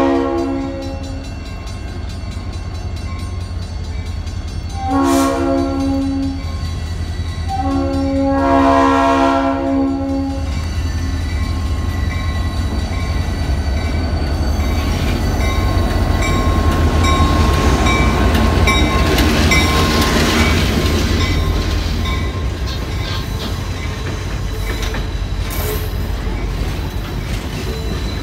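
Diesel locomotive 2198 sounding its chime air horn for a grade crossing: the end of one blast, a short blast about five seconds in, and a longer blast about eight seconds in. Then the locomotive's engine rumbles past and the passenger coaches roll by with clickety-clack, loudest about twenty seconds in. A crossing bell rings steadily throughout.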